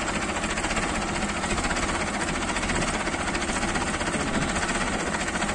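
Preet 6049 tractor's direct-injection diesel engine running steadily.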